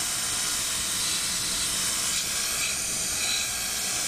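Surface grinder running under flood coolant, a steady hiss of coolant spray and the wheel as it makes light spark-out passes along the inside corner of a hardened steel square.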